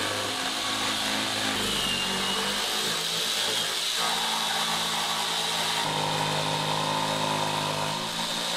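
A 1940s Craftsman saber saw running continuously, its reciprocating blade cutting through a thin wooden board. The motor's pitch shifts a few times as the load on the blade changes.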